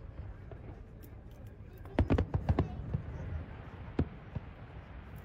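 Aerial fireworks bursting: a quick cluster of about six bangs around two seconds in, then two more single bangs, over a low steady rumble.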